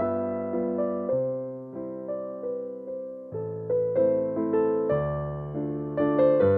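Background music: a gentle piano melody, each note struck and left to fade.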